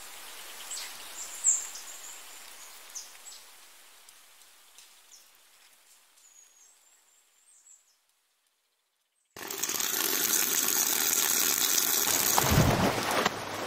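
Small birds chirping, fading out over the first several seconds. After a brief silence, water pours suddenly and loudly into a steel basin of leafy greens: a steady splashing rush, with a low thump near the end.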